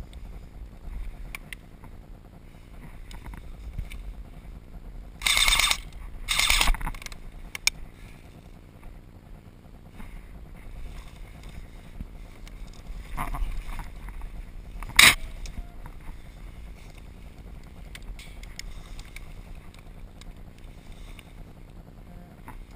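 Two short bursts of airsoft gun fire about a second apart, each with a fast rattle of shots, followed later by a single sharp snap, over a low rumble of wind on the microphone.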